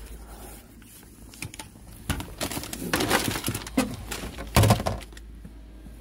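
Gear being moved around in an SUV's cargo area: about three seconds of rustling and clattering knocks, loudest with a heavy knock about four and a half seconds in.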